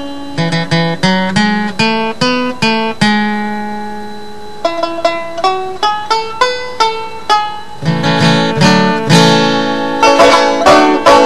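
Music played on a plucked string instrument: a picked melody of single ringing notes, one held for about a second and a half near the middle, turning to faster, fuller picking from about eight seconds in.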